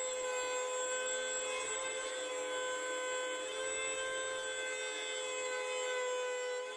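Rebir electric hand planer, mounted upside down as a benchtop jointer, running at a steady whine while a wooden board is pushed across its cutter head, shaving its edge.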